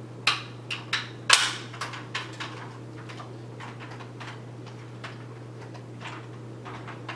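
Hard plastic clicks and clacks from a Dyson Ball vacuum's cleaner head as it is handled and its C-clip and parts are fitted back on: a handful of sharp knocks in the first couple of seconds, the loudest about a second and a half in, then only a few faint ticks.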